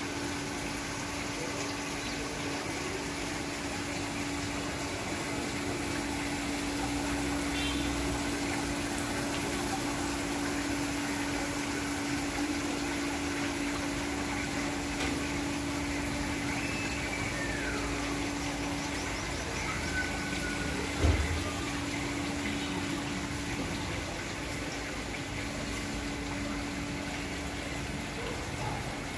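Steady rush and splash of falling water from a garden water wall and dome fountains, with a low steady hum that stops about three-quarters through. A single thump about two-thirds through.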